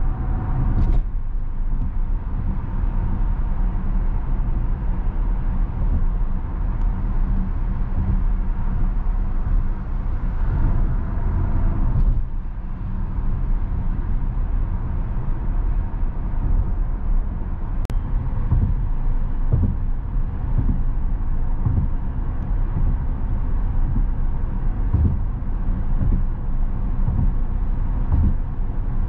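Tesla Model S Plaid on the move: a steady rumble of tyre and road noise, heaviest in the low end, holding at a constant level.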